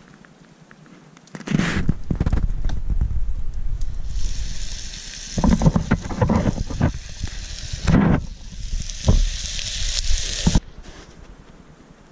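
Campfire hissing and sizzling under metal camp cookware, with several knocks of metal cups and pot being handled over a heavy low rumble on the microphone. The sound starts abruptly about a second and a half in and cuts off suddenly near the end.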